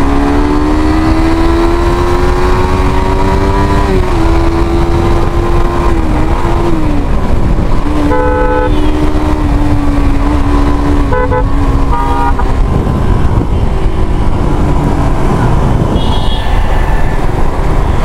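A small single-cylinder sport motorcycle's engine under way at speed, its pitch rising as it pulls for the first few seconds, then holding, with heavy wind rush on the microphone. A vehicle horn honks once at about eight seconds and twice more briefly a few seconds later.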